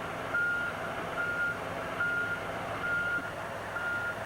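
Backup alarm on a tracked excavator beeping a single steady pitch a little more than once a second while the machine travels, its diesel engine running underneath.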